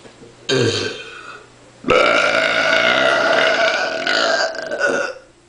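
A person burping: a short burp about half a second in, dropping in pitch, then one long drawn-out burp lasting about three seconds.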